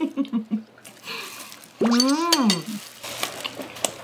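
Eating sounds: chewing and wet mouth smacks, with one drawn-out hummed vocal sound that rises and falls about two seconds in. Small clicks and smacks follow near the end as gloved fingers are licked.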